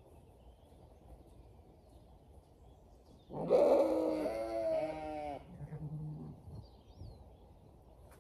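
Zwartbles sheep bleating: one loud, long, wavering bleat about three seconds in, followed straight away by a lower, quieter bleat.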